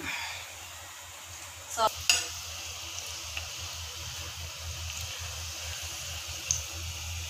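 Hot oil sizzling steadily around gram-flour-coated bottle-gourd koftas deep-frying in a kadai, with the stir and scrape of a ladle turning them. Two sharp knocks come about two seconds in.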